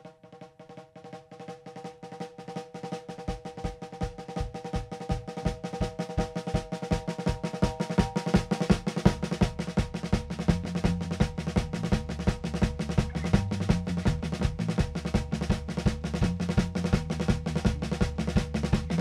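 Instrumental rock music building in a crescendo: a fast, steady drum beat over sustained tones, with a bass drum coming in about three seconds in and a heavier bass joining around nine seconds.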